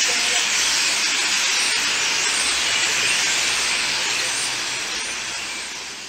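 Dense chattering din of a large starling roost settling in pine trees, hundreds of birds calling at once into a continuous hiss-like wash with thin whistles through it. It fades out near the end.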